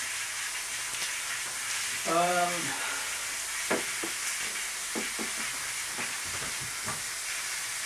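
Pineapple pieces frying in butter in a frying pan, a steady sizzle, with a few light clicks and knocks from about halfway through.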